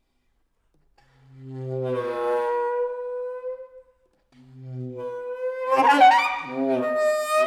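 Solo saxophone playing two long held notes separated by a short pause. Each swells in from a low tone; the second is louder, its pitch wavering and roughening in the middle before settling on a held note.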